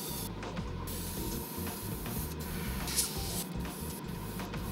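Airbrush spraying paint with a high, steady hiss that starts about a second in and stops briefly several times. Soft background music plays throughout.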